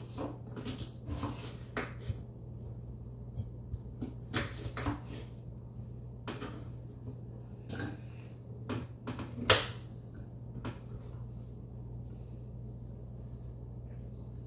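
A kitchen knife slicing potatoes on a plastic cutting board: irregular taps and knocks of the blade on the board, the loudest about nine and a half seconds in, over a low steady hum.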